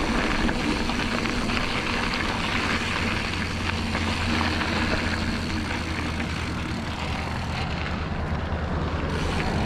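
Diamondback Recoil full-suspension mountain bike rolling along a dirt trail: steady tyre and trail noise under a low wind rumble on the camera microphone.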